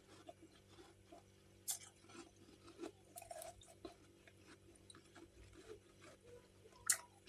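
Mouth chewing and crunching chunks of freezer frost, with small crackles throughout and two loud crunches, one about a second and a half in and one near the end.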